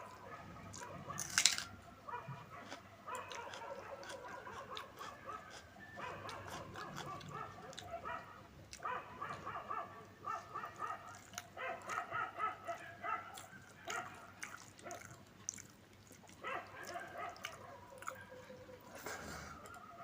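A dog whining and whimpering in short, repeated pitched cries, mixed with the clicks and smacks of someone eating. One sharp click about a second and a half in is the loudest sound.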